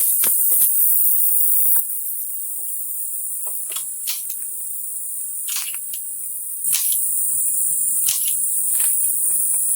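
A dense, steady, high-pitched chorus of chirring insects, crickets or similar, with scattered faint clicks.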